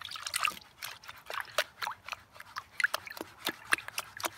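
Water running off the lip of a plastic gold pan and splashing into a tub of water, with many quick, irregular plops and drips, as the light material is rinsed off the top of the pan.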